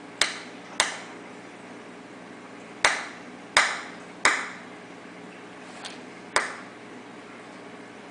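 Peacock mantis shrimp hammering a clam shell with its club-like raptorial appendages: six sharp cracks and one fainter one at uneven intervals, each dying away quickly.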